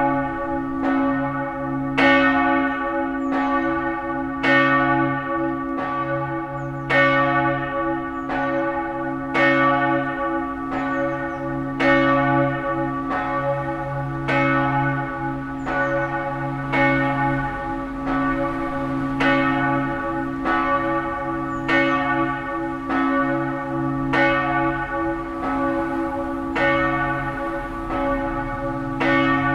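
Church bells of a five-bell peal tuned D-flat, E-flat, G-flat, A-flat and B-flat ringing together. Strokes fall at uneven, overlapping intervals, each ringing on over a continuous deep hum from the larger bells.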